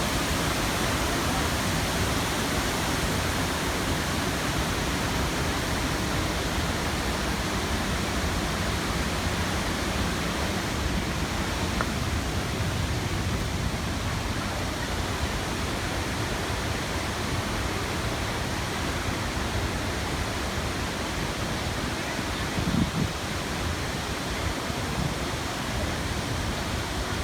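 Waterfall pouring: a steady, even rush of falling water, with a brief low thump about three quarters of the way through.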